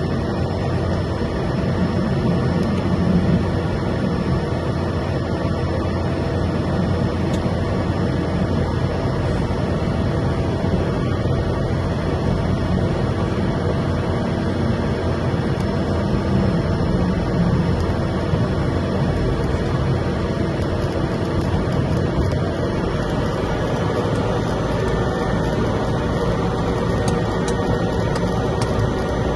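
Cessna 208 Caravan's PT6A turboprop and propeller running steadily, heard from inside the cockpit during the landing rollout and taxi, an even drone with several steady tones.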